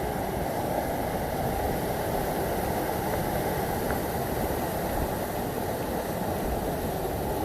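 Waterfall's water pouring into the creek: a steady, even rush with no change.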